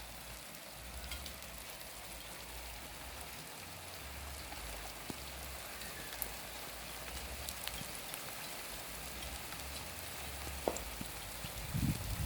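Steady rain falling, an even hiss with scattered clicks of individual drops. A few low rumbles come in near the end.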